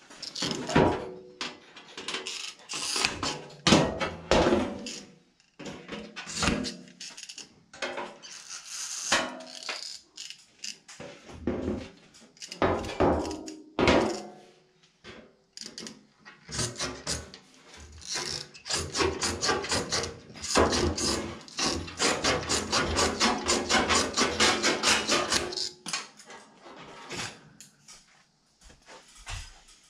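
Sheet-metal duct pieces handled and fitted together, with scattered metallic knocks and bangs, then a fast run of hammer blows, several a second, in the second half as a folded seam or tab is knocked closed. The blows stop a few seconds before the end.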